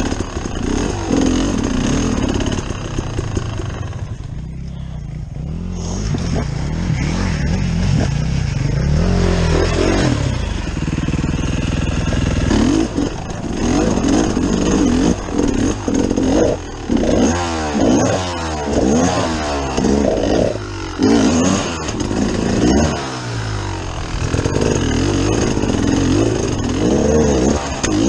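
Enduro dirt-bike engine working up a steep rocky climb, its revs rising and falling with the throttle. It eases off briefly about four seconds in, and through the middle stretch it takes a quick run of short blips, roughly one a second.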